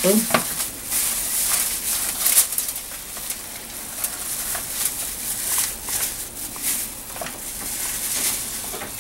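Close, irregular crinkling and rustling of a thin disposable plastic glove and parsley sprigs as a gloved hand presses herbs into the cavity of a whole raw fish.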